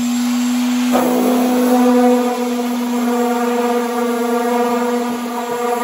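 Electric orbital sander running against the bare steel inside of a 1971 VW Super Beetle's roof, sanding it down so paint will take. It makes a loud, steady whir with a hum, and about a second in a higher droning tone joins and holds.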